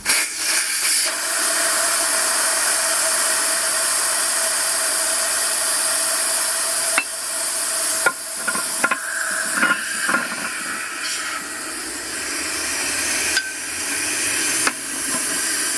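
Air hissing steadily out of a truck tire through its valve stem as the tire is deflated so the bead can be broken on a tire changer. A few light clicks and knocks come in over the second half.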